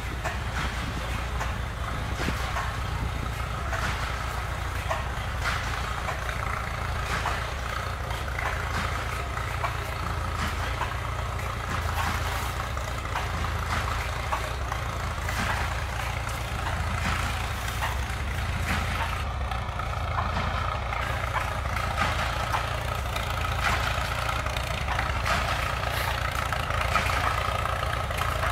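An engine idling steadily: a continuous low rumble with a steady higher whine running through it.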